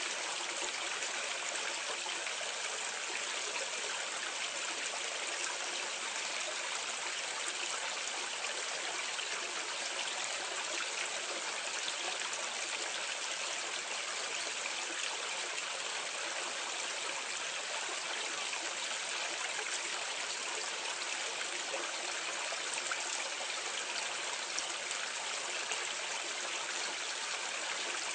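Water pouring steadily into a drain or gully from a drainpipe, heard from a medium distance as a constant splashing rush with no breaks.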